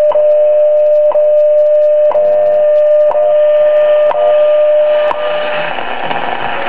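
Drake 2-B shortwave receiver's speaker giving a steady tone with a click about once a second. About five seconds in, the tone fades into hiss and static as the receiver is tuned.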